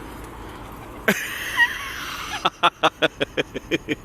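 A person laughing in a fast, wheezy run of breathy pulses, about six or seven a second, starting about halfway through, after a brief rush of noise about a second in.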